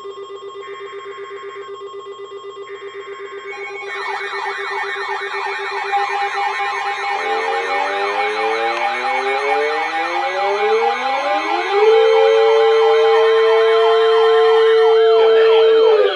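Several warning sirens sounding together for a tornado warning. A steady pulsing tone plays first and a fast-warbling siren joins about four seconds in. From about seven seconds several sirens wind up in rising glides, the loudest settling into a steady tone about twelve seconds in that cuts off near the end.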